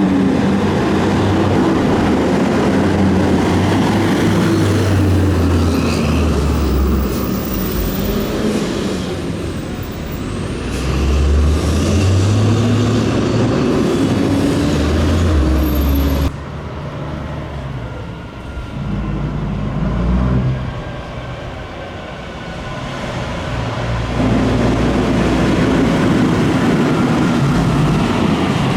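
Fire trucks pulling away, their diesel engines revving up and dropping back again and again as they shift through the gears. The sound drops suddenly about two-thirds of the way through.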